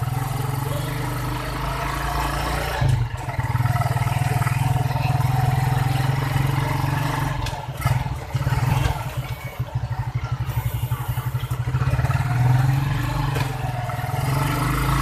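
Engine of a small motor vehicle running, heard from inside the passenger compartment, with body rattle and clatter from a bumpy road. The engine note turns rough and fluttering for a few seconds a little past the middle.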